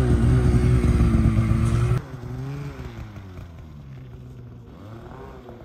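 Mountain snowmobile engine running close by, loud and steady. After an abrupt cut it is heard from farther off, revving up and down twice as the sled pulls away through deep powder.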